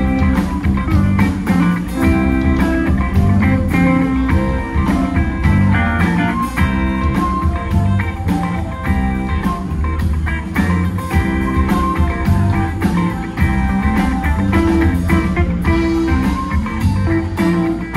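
Rock band playing a guitar-led, blues-tinged number, with guitar over bass and drums keeping a steady beat.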